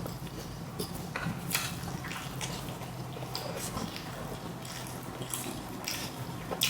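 A person chewing food close to the microphone: irregular wet smacks and mouth clicks.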